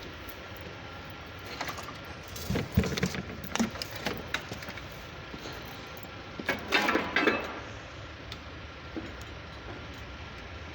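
Metal tools clinking and scraping in short bursts, about two seconds in and again around seven seconds, over a steady machine hum.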